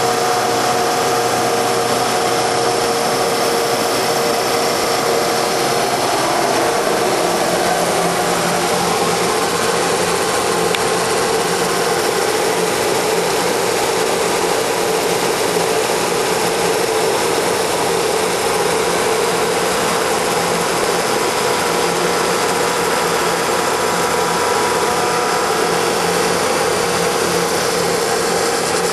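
Hydraulic automatic copy wood lathe running steadily, a loud machine noise with a steady hum. The hum's pitch shifts about six seconds in.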